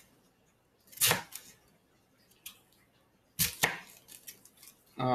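Kitchen knife cutting through Napa cabbage near its dense heart, each cut a short crunch ending in a tap on the cutting board. There are a few separate cuts: the loudest about a second in and two close together about three and a half seconds in, with light ticks between.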